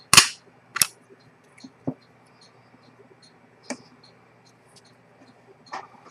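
Five sharp clicks and taps of a vintage Rolex 6694 watch movement and small tools being handled on a wooden movement holder on a workbench. The first click is the loudest. Faint, quick, high ticking runs under them.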